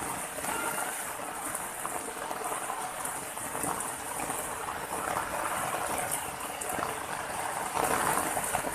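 Steady rush of water running over a rocky ledge.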